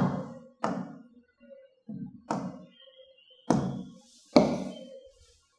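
About six hard taps against a whiteboard, irregularly spaced, each ringing off briefly.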